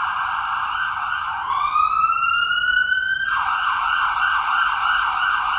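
Electronic siren on a police pickup truck, sounding a fast yelp of about four cycles a second. About a second and a half in it sweeps up into a single rising wail for about two seconds, then drops sharply back to the fast yelp.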